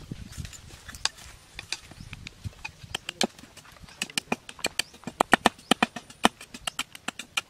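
Machete blade knocking and scraping against a thin bamboo strip as it is split and shaved, a string of sharp clicks. The clicks are sparse at first and become a quick, fairly even run of about four to five a second about four seconds in.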